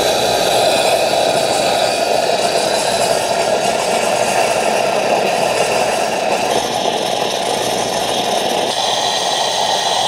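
Mr. Coffee Prima Latte Luxe espresso machine running its automatic milk-frother clean cycle: steam and hot water jet from the frother spout into a cup with a loud, steady hiss.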